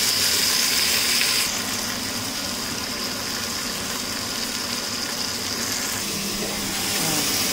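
Chicken pieces and chopped onion sizzling as they brown in a pot: a steady hiss that turns thinner and duller about a second and a half in.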